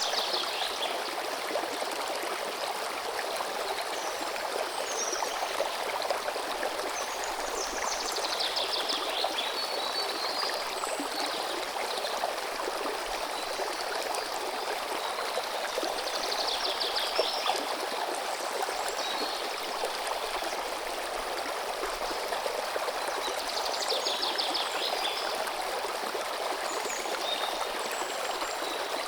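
River water running steadily. A bird sings a short, rapid trill three times, about every eight seconds, with faint high chirps in between.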